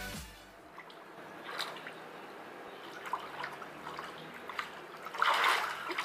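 Swimming-pool water splashing and dripping as a swimmer moves through it, with a louder splash about five seconds in.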